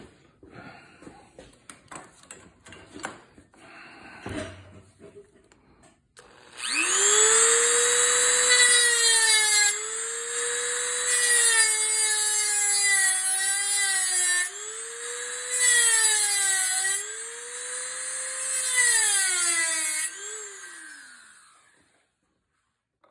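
Dremel rotary tool with a small cutoff wheel cutting a screwdriver slot into a steel bolt snapped off inside a nut, its whine rising as it spins up about six seconds in, then dipping and recovering in pitch over a high grinding hiss as the wheel bites. It winds down with a falling pitch about twenty seconds in, after a few light clicks and knocks at the start.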